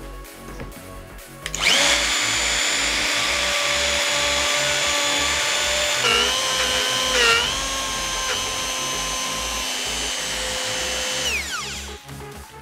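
Electric power tool motor switched on about two seconds in, running with a steady high whine whose pitch dips briefly under load around the middle, then switched off and spinning down near the end.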